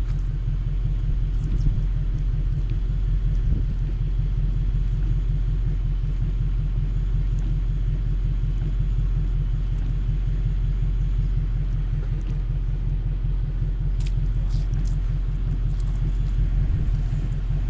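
A Jaguar S-Type's engine idling steadily, a low rumble with a fine rapid pulse, and a few faint clicks about fourteen seconds in.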